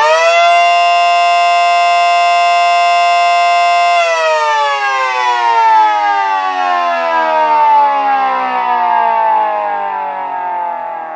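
Mini Model 5T siren, a small motor-driven rotor siren, running on a power inverter. It holds a steady, loud, multi-tone wail at full speed for about four seconds, then is switched off and winds down in a long falling wail. It sounds a bit higher pitched on the inverter than on household power, which the owner puts down to the inverter supplying a higher voltage.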